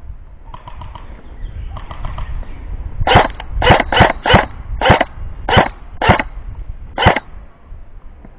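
Airsoft guns firing: faint short bursts of rapid automatic fire, then from about three seconds in, some nine loud single shots close by, roughly two a second, stopping about a second before the end.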